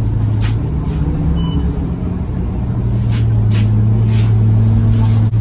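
Scania K230UB city bus heard from inside the cabin: the diesel engine and drivetrain running with a steady low hum and a tone that rises gradually in pitch as the bus picks up speed. A few short clicks or rattles sound over it.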